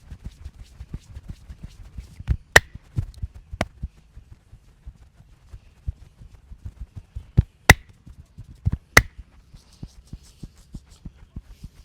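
Hands tapping and chopping rapidly on a head during a head massage, about six soft thumps a second, with four sharp snaps spread through.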